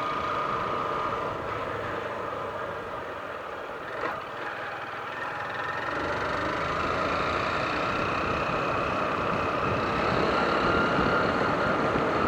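150 cc motorcycle engine running under way, with wind rushing over the microphone; it gets louder in the second half. A brief click about four seconds in.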